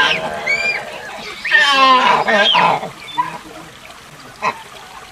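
Proboscis monkey calling: a short arched squeak about half a second in, then a long, wavering pitched call from about one and a half to three seconds, followed by a single sharp click near the end.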